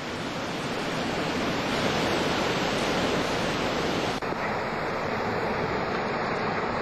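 Hurricane wind and surging storm-tide water making a steady rushing noise. About four seconds in, the noise changes abruptly and becomes duller.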